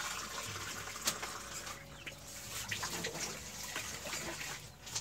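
Wide metal pan of clams and vegetables with water just added, sizzling over a wood fire with a steady hiss. A few short crackles sound over it.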